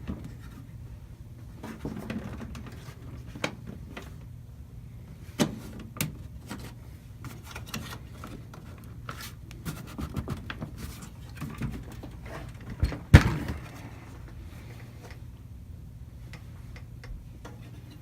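Scattered clicks, taps and scrapes of a desktop computer's case side panel being worked at by hand as it refuses to come off, with a sharper knock about 13 seconds in. A low steady hum runs underneath.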